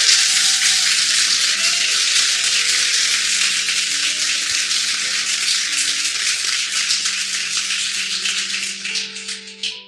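Guests applauding: dense clapping that thins to a few last claps near the end, with soft sustained keyboard music underneath.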